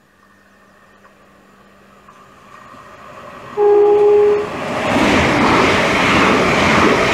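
A Southern Class 377 Electrostar electric train, two units coupled, approaching and passing through the station at speed. Its sound grows gradually, it gives one short steady horn blast about three and a half seconds in, and then loud wheel and rail noise follows as the carriages go by.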